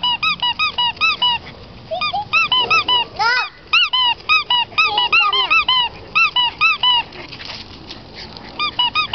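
Squeaky dog toy squeaking over and over as a dog chews it, quick squeaks of about three or four a second that pause near the end, then start again.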